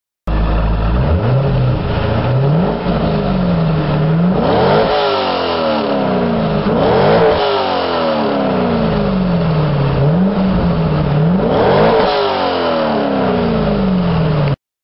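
Corvette Z06 V8 revved repeatedly while standing still: a few small blips, then about three bigger revs, each climbing quickly and falling back slowly toward idle, through the exhaust.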